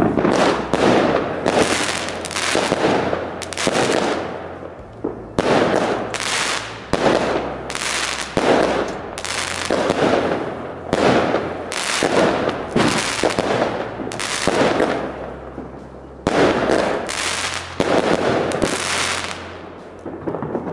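Consumer firework battery (the U31439 Lily Magnolia cake) firing shot after shot, about one to two a second, each a sharp bang that trails off. It pauses briefly twice, about four to five seconds in and again around sixteen seconds in.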